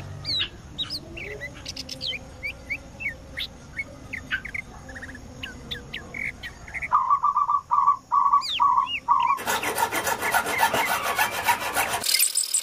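Felt-tip marker squeaking in short chirps as it is drawn across a flat PVC board, with a run of evenly repeated squeaks near the middle. For the last few seconds, a hacksaw rasps through the PVC in fast strokes.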